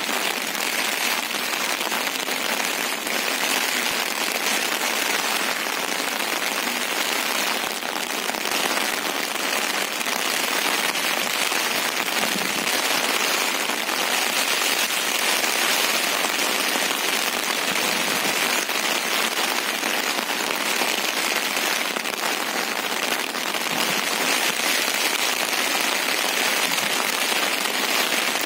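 Heavy rain, a steady, even hiss with no breaks.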